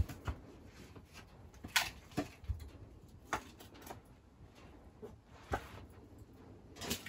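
Pieces of split firewood knocking and clattering against each other as they are handled and sorted for the wood stove: about eight separate wooden knocks at irregular intervals, with a louder pair near the end.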